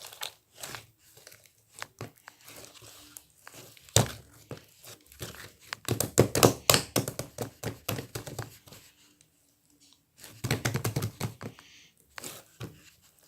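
Slime being squished, poked and stretched by hand, making sticky clicks, pops and crackles in irregular bursts. The bursts are busiest in the middle and again just after a short pause near the end.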